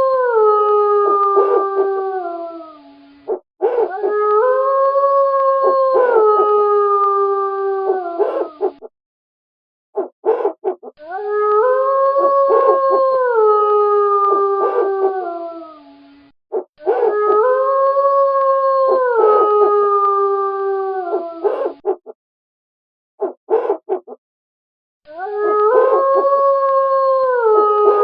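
Wolves howling: long, held howls that slide down in pitch at the end, the same howl repeating about every seven seconds with brief pauses between.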